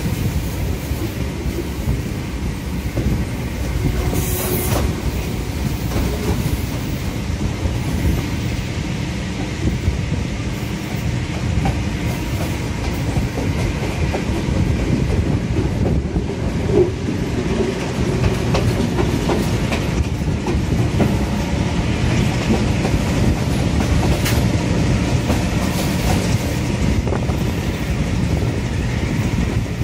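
Diesel-hauled passenger train running along the line, heard from an open carriage window: a steady rumble of wheels on the rails with clickety-clack over the rail joints.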